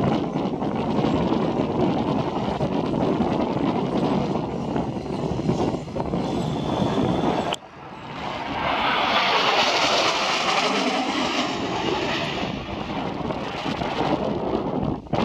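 Wind buffeting the microphone with a low rumble, cutting off suddenly about halfway through; then the jet roar of Blue Impulse Kawasaki T-4 trainers swells to a peak and slowly fades as they pass.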